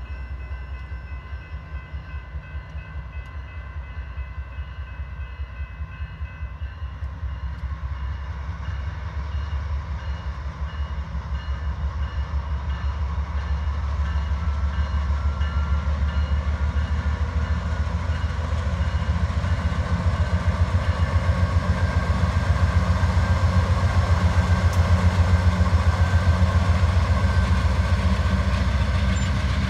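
Freight train's diesel locomotive approaching, its low engine throb growing steadily louder.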